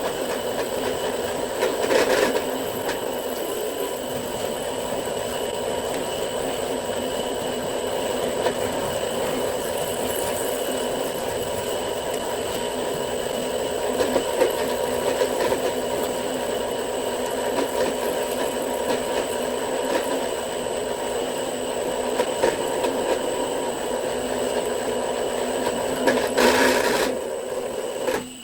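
Electric drill running steadily under load, turning a homemade wire winder that pulls 2/0 copper cable through a wire stripper, with a scraping, rattling noise from the cable. Near the end the drill stops and winds down.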